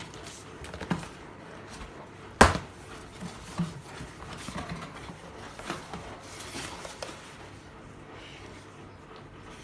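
Handling of a boxed full-face motorcycle helmet and its packaging: scattered knocks and clicks with light rustling, the loudest a sharp knock about two and a half seconds in.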